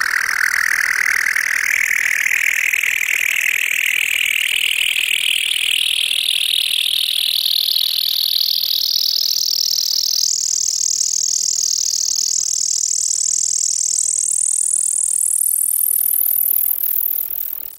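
Synthesized futuristic sci-fi sound effect: a layered electronic sweep that rises steadily in pitch, from mid to very high, over many seconds, then drops away near the end.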